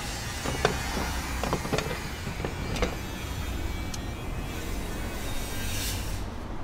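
Cooking clatter at a waffle stall: a handful of sharp clicks and metal knocks in the first three seconds, over a steady low rumble.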